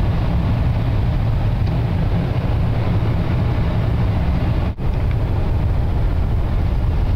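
Car moving through deep snow: a steady, dense low rumble of engine and tyres churning snow, with a momentary break in the sound nearly five seconds in.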